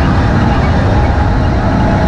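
MINI John Cooper Works Buggy rally-raid car driving fast over a rough desert dirt track, heard from inside the cockpit: the engine running under load amid loud, constant tyre and chassis noise.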